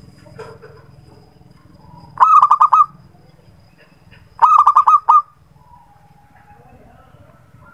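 Zebra dove (perkutut) cooing: two short phrases of quick, rapidly repeated coos, a couple of seconds apart.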